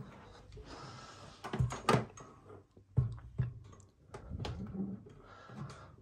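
Knocks and light rattles from handling a steel wire-grille high-velocity floor fan while it stands switched off. Several sharp knocks, the loudest about a second and a half to two seconds in and again around three seconds, over a soft rustle of handling.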